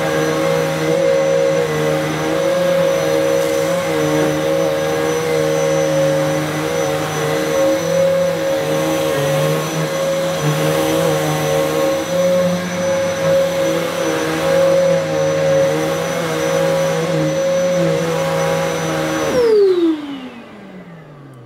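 Electrolux Intensity upright vacuum cleaner running loud and steady with its suction motor and brush roll on, being pushed over carpet. The owner suspects it may just be that noisy. It is switched off about 19 seconds in, and its whine falls in pitch as the motors wind down.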